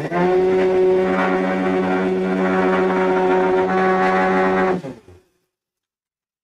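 Electric mixer grinder (mixie) motor running at full speed, grinding a wet green chutney of chillies, mint and coriander. It is a steady, loud hum that is switched on at once and stops about five seconds in.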